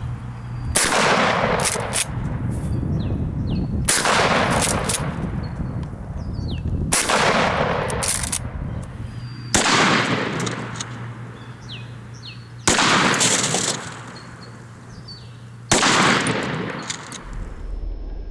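Six shots from a 12-gauge Mossberg 500 pump shotgun firing slugs, about three seconds apart, each a sudden report with a long echoing tail.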